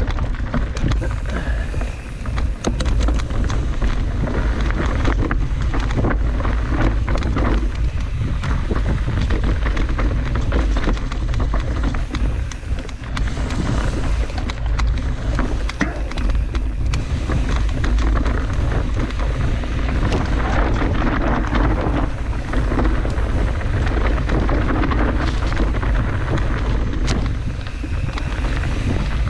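Steady wind rumble buffeting an action camera's microphone, with scattered knocks and rattles throughout.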